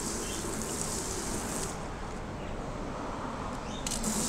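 Water spray from a garden hose nozzle hissing onto a flat test panel, in two spells: it stops about a second and a half in and starts again near the end.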